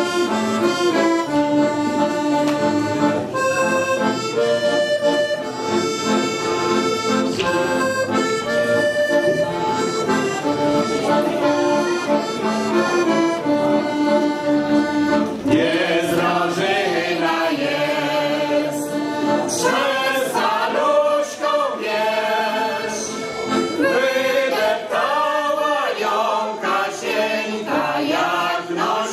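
Piano accordion playing a folk melody on its own for about fifteen seconds, then a group of singers comes back in and sings along with the accordion.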